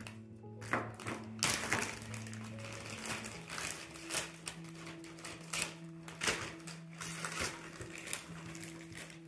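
Background music of long held notes that shift to a different pitch about three seconds in, over the crinkling and rustling of clear plastic packaging bags and small clicks as cables are pulled out of them.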